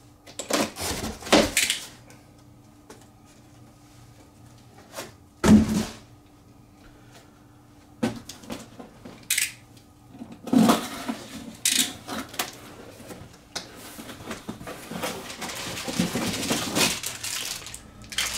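Unboxing noises: parts and packing material handled in a cardboard box, with a few sharp knocks near the start, one loud knock about five seconds in, then steady clacking and rustling through the second half.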